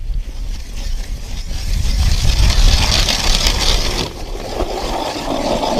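Hand ice auger cranked round, its blades cutting into river ice, a continuous grinding over a steady low rumble; the noise shifts from a high hiss to a lower grind about four seconds in.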